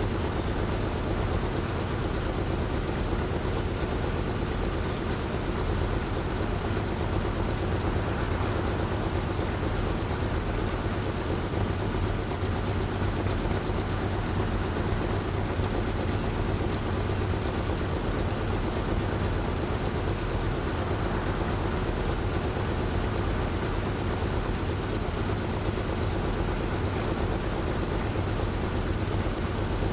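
Steady low engine drone, unchanging throughout, with a faint steady hum above the rumble.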